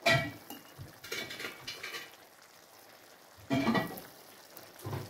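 Chicken pieces in a tomato and red-wine sauce simmering and sizzling in a pot, with a low crackle throughout. A metal spoon knocks against the pot at the start and again about three and a half seconds in.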